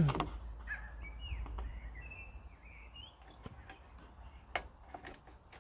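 A small bird chirping, a series of short rising and falling calls over the first three seconds or so. A few faint clicks follow, and a low rumble fades out early on.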